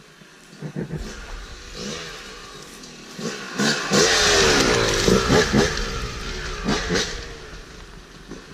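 Dirt bike engine revving hard under load as it climbs a steep trail toward and past the listener. It grows louder from about a second in, is loudest in the middle with rising and falling revs, and fades away near the end.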